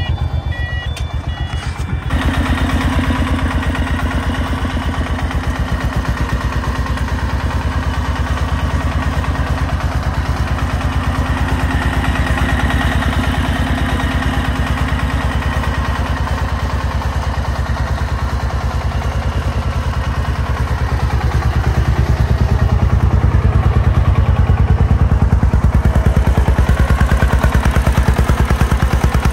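Diesel engine of a công nông farm truck carrying a full load of soil, running with a fast, even chugging. It grows louder in the last third.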